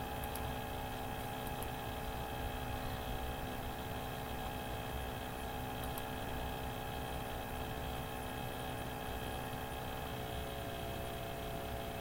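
Steady electrical hum: several fixed tones over a low, even rumbling noise, with a few faint clicks.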